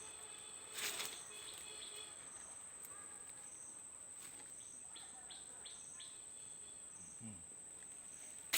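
Forest insects keeping up a steady high trill, with a short high chirp repeating about once a second. A few soft clicks of handling come through, and a sharp click right at the end.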